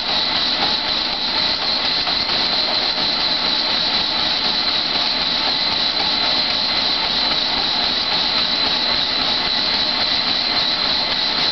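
Home treadmill running at speed: a steady high motor whine and belt noise, with the pounding of running footsteps on the deck.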